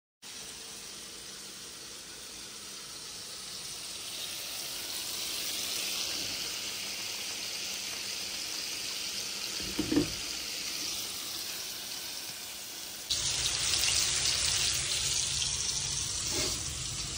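Chicken pieces frying in bubbling oil in a pan: a steady sizzling hiss that grows slowly louder, with a single knock about ten seconds in. About thirteen seconds in the sizzle jumps louder and a low rumble joins it, with a couple of clicks near the end.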